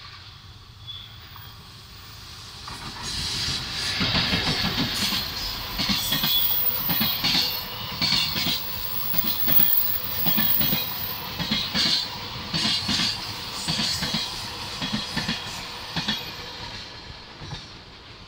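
A freight train hauled by an EF81 electric locomotive passing close by: the sound builds over the first few seconds as the locomotive arrives, then a long line of container flat wagons rolls past with a steady, rhythmic clickety-clack of wheels over rail joints, fading near the end as the last wagons go by.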